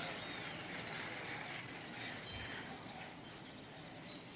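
Faint outdoor background noise with a few short, high bird chirps.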